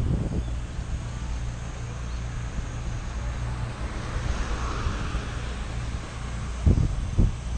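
Steady low rumble of a moving vehicle, with two short thumps about half a second apart near the end.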